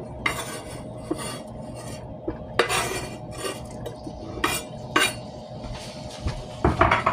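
Cooking utensil clinking and scraping against a pot as diced ham is tipped into hot oil and stirred, with several sharp knocks spread out and a quick cluster of them near the end.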